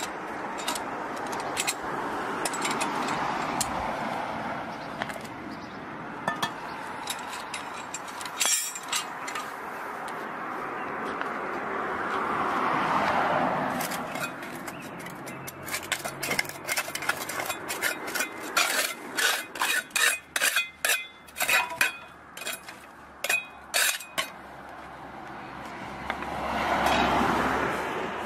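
Metal clinks, knocks and scraping of hand tools against a cast-iron street drain grate and frame as the grate is lifted out and the frame is cleared of grit, densest in the second half. Passing traffic swells up and fades twice.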